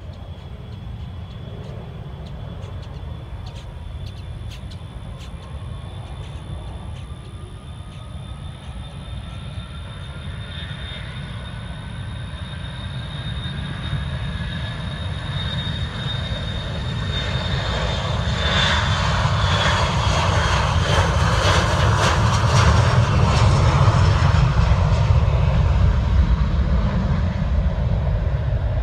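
Boeing 737 airliner's jet engines at takeoff power. A whine rises in pitch as the engines spool up for the takeoff roll, under a rumble that grows steadily louder. The sound is loudest well past halfway, as the jet lifts off and climbs away.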